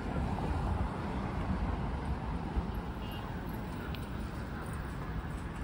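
City street traffic: a steady low rumble of cars and scooters passing on the road.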